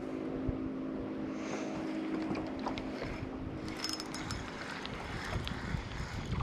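Wind rumbling on the microphone over open water, with a faint steady hum through the first half and scattered light clicks and taps in the second half.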